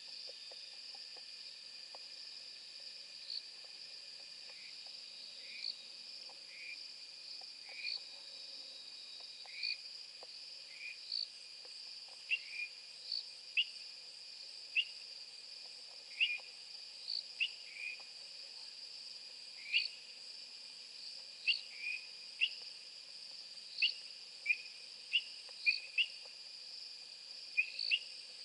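Night insect chorus: crickets trilling steadily and high-pitched, overlaid by short chirping calls that repeat irregularly and come more often in the second half.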